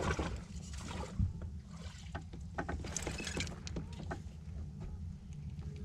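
A small black bass being reeled in on a fishing reel and swung aboard a boat. Clicks and rattles from the reel and line are followed, about three seconds in, by a short splashy hiss as the fish comes out of the water, over a steady low rumble.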